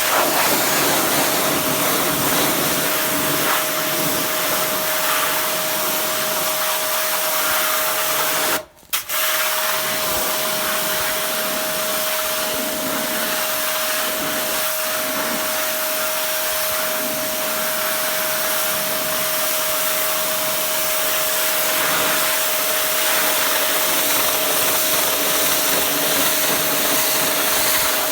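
Kranzle K1050-TST electric pressure washer running, its motor and pump giving a steady hum under the loud hiss of the high-pressure water jet spraying down a wooden fence. The sound drops out for a moment about nine seconds in, then carries on.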